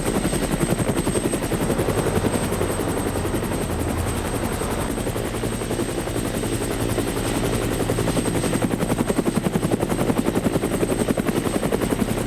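Helicopter rotor running steadily, a fast even chop of the blades, with a thin high whine held throughout.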